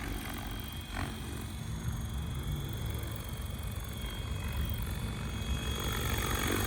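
Synergy 696 electric RC helicopter flying on a 12S pack, a steady motor whine over the rotor noise, growing slightly louder toward the end.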